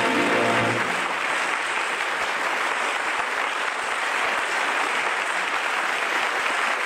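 Studio audience applauding steadily, with the last held notes of music dying away about a second in.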